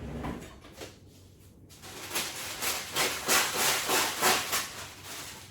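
Cake batter being whisked by hand in a bowl: a rhythmic scraping, about three to four strokes a second, starting about two seconds in.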